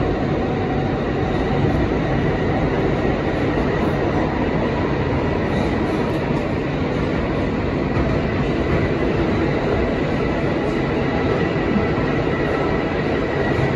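R160 subway train running at speed, heard from inside the car: a steady, loud rumble of steel wheels on the rails, with a faint steady high tone over it.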